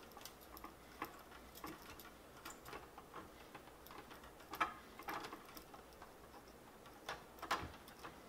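Light, irregular clicks and taps of a small metal corner clamp being fitted loosely onto the corner of styrene plastic kit walls, with a few louder knocks around four and a half, five and seven and a half seconds in.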